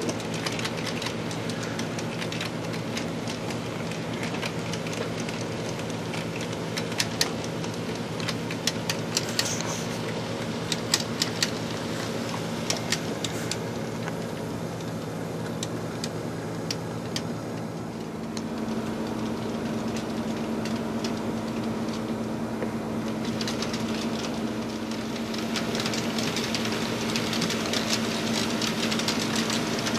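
HO scale model freight train running past: a steady electric hum with scattered clicks of wheels over the rail joints. The hum grows louder about two-thirds of the way through as the SOO F-unit locomotives come by.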